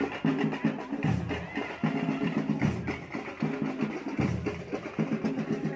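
Samba-school music: a percussion section of drums and sharp wood-block-like strikes playing a fast, steady samba beat.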